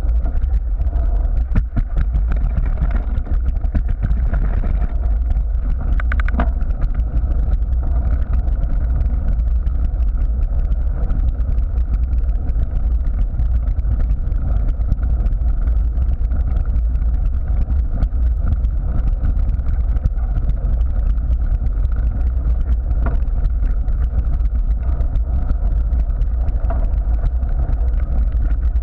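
Steady low rumble of a Cannondale full-suspension mountain bike rolling on a gravel path, heard from a frame-mounted camera: tyre noise and frame vibration, with wind on the microphone and a few sharp clicks.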